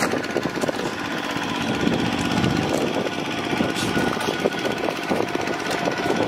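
Hand tractor's engine running steadily with a rough, rapid mechanical clatter.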